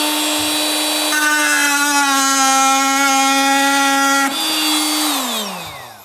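Fein cordless oscillating multi-tool cutting through a wooden batten. It runs up to a steady buzz, takes on a harsher, rasping tone under load from about one second in for roughly three seconds, then runs free briefly before it is switched off and winds down with a falling pitch near the end.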